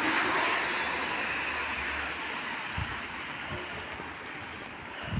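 Steady rain falling, an even hiss that eases slightly over a few seconds, with a couple of brief low thumps.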